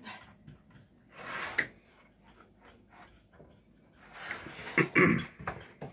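Metal measuring cup pressing and tapping a graham-cracker crumb crust down into a baking dish: a soft scrape about a second and a half in, then scraping and a couple of knocks near the end.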